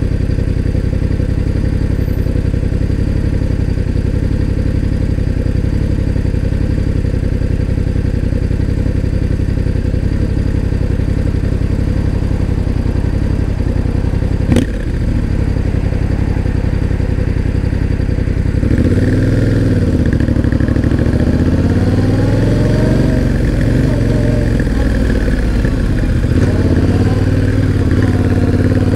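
Yamaha Ténéré 700's 689 cc parallel-twin engine idling steadily, with one sharp click about halfway through. After about 18 seconds the bike pulls away, and the engine speed rises and falls as it is ridden.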